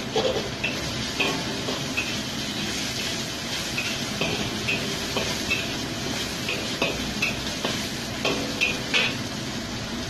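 Metal spatula stirring and scraping egg and chicken pieces around a wok, with irregular clinks against the pan about twice a second over the steady sizzle of frying in oil.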